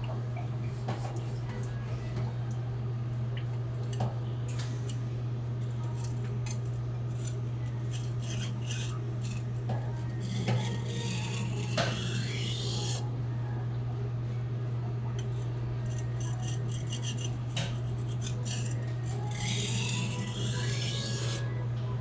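Hand-forged Blue #2 steel kitchen knife stroked across a whetstone, making rasping, scraping strokes that come in clusters about ten seconds in and again near the end. A steady low hum runs underneath.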